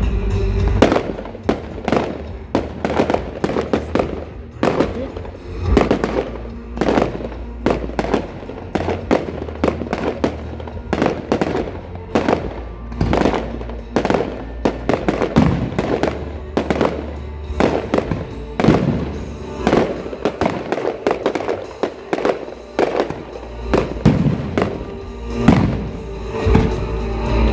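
Aerial firework shells bursting in quick succession, a few sharp bangs each second at uneven loudness.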